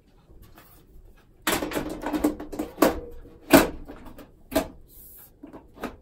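Steel top cover of an HP ProLiant DL380 G7 rack server being set onto the chassis and slid into place: a scraping rattle about a second and a half in, then several sharp metal knocks as the lid seats.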